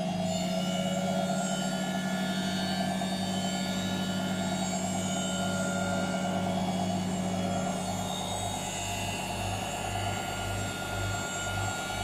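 Whirlpool FL 5065 front-loading washing machine on its 600 rpm spin: steady motor whine over a pulsing low drum hum, the whine changing pitch about eight seconds in.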